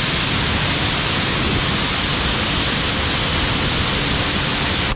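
Pressure washer spraying a steady fan of water across a car bonnet, a continuous loud hiss that stops abruptly near the end.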